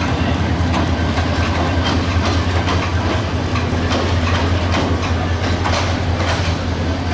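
Bangladesh Railway diesel-electric locomotive hauling an intercity passenger train. The engine gives a steady low hum, and the wheels clack irregularly over the rail joints as the train moves.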